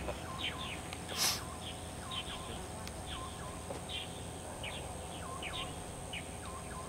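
Birds chirping over and over in short, quick falling calls, with a steady high-pitched tone beneath them. A brief rushing noise about a second in.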